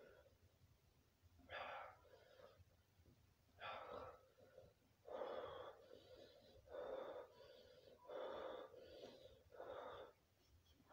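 A man breathing hard through his mouth: about six loud, breathy pants, roughly one every one and a half seconds, from the burn of an extremely hot chili chip.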